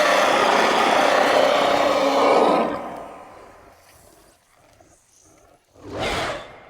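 Sound-designed mutant monster roar: a long, rough roar that fades out about three seconds in, then a short second roar near the end.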